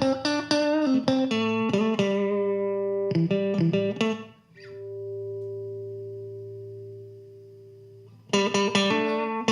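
Electric guitar, a Fender Stratocaster, played through an MS Sound Dynamic Compressor pedal. Quick picked notes give way, about halfway through, to a held chord that rings on slowly fading for over three seconds, and picking resumes near the end.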